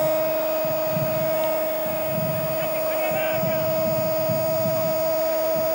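A steady hum at one unchanging pitch with overtones, over a faint low rumble that pulses about twice a second.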